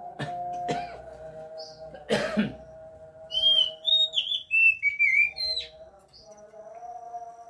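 Oriental magpie-robin (kacer) singing, a kacer song of the kind used to bring birds into breeding condition. About three seconds in comes a run of clear whistled notes that slide between pitches for about two and a half seconds, with short high chirps around it. Before that come two short harsh rasping sounds.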